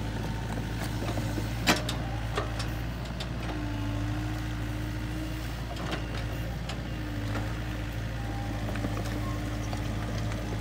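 Hitachi mini excavator's diesel engine running steadily as the arm and bucket work through mud and water, with a sharp knock about two seconds in and a few lighter clicks. A whining tone comes in twice over the engine drone, for about two seconds and then about one.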